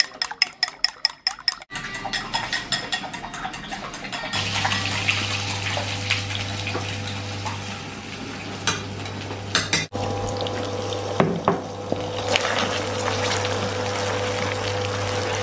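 Chopsticks beating eggs against a ceramic bowl, a quick run of clicks. A few seconds in, the beaten eggs go into a hot oiled pan and sizzle steadily as they are stirred and scraped with chopsticks, over a steady low hum.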